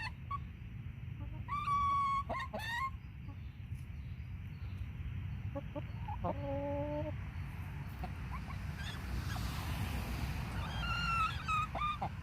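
Chickens calling: a few separate drawn-out squawks about two seconds in, a lower-pitched call around six seconds, and another near the end, over steady low background noise.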